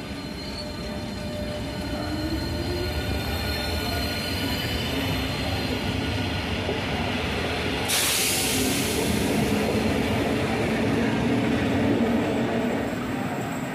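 Renfe Cercanías class 446 electric multiple unit, two units coupled, running past along the platform. Its wheels rumble, and a motor whine slowly rises in pitch as it gathers speed. A sudden loud hiss starts about eight seconds in and fades over a couple of seconds.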